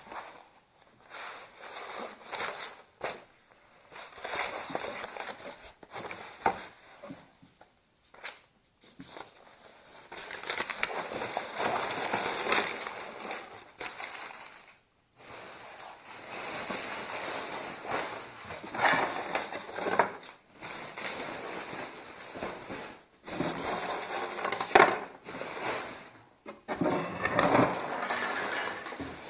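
Paper and cardboard sheets rustling and crinkling as they are lifted and sorted out of a wooden drawer, with scattered knocks and clatter of small objects and wood against wood.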